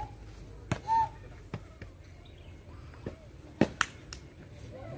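Sepak takraw ball being kicked back and forth: several sharp knocks of foot on the woven plastic ball, unevenly spaced, the loudest two close together a little past three and a half seconds in. A short vocal call comes about a second in.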